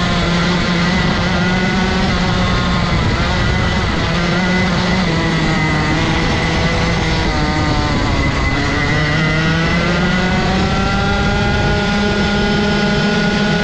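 Rotax 125 single-cylinder two-stroke kart engine running hard on track, its pitch dropping and climbing several times as the driver lifts and accelerates again. It dips about three seconds in and around eight seconds in, then climbs and holds high near the end.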